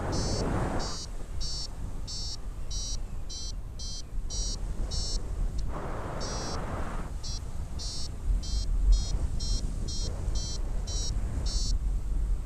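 Paraglider's variometer beeping in lift: short high beeps about two a second, closer together at times, with a gap of about a second midway and stopping near the end. The beeps signal that the glider is climbing. Wind rushes over the microphone throughout.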